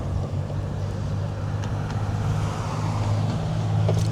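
An engine running steadily with a low hum, under a rushing noise that swells a little past the middle and then eases.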